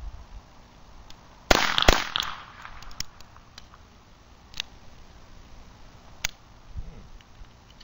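Two shots from a Beretta 21A .22 Long Rifle pocket pistol in quick succession, about half a second apart, followed by several much quieter sharp clicks.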